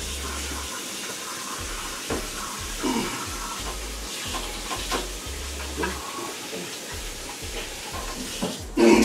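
Kitchen tap water running steadily as hands are washed under it, with a few light knocks and splashes and a louder thump near the end.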